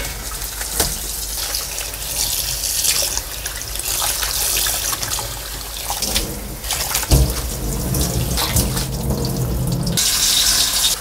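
Tap water running and splashing in a basin as salted napa cabbage is rinsed by hand, with a sharp knock about seven seconds in.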